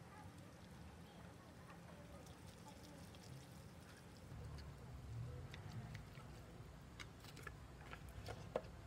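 Faint wooden chopsticks stirring instant noodles in a ceramic dish, with a few light clicks and taps near the end, the sharpest just before the end, over a low steady hum.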